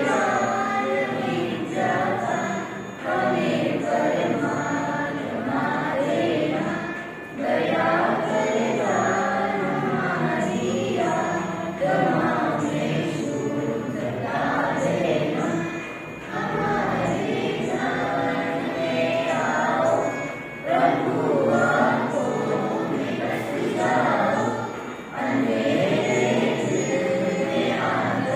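A group of school students singing the morning assembly prayer together in chorus. The singing comes in phrases of a few seconds each, separated by brief pauses for breath.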